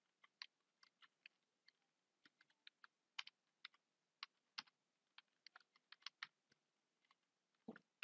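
Computer keyboard typing: faint, irregular key clicks, with one heavier key stroke near the end.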